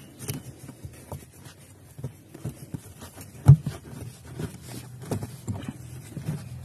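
Pleated cabin AC filter being pushed by hand into its housing under a Renault Kwid's dashboard: irregular scraping, rubbing and small clicks as it slides in, with one loud knock about three and a half seconds in.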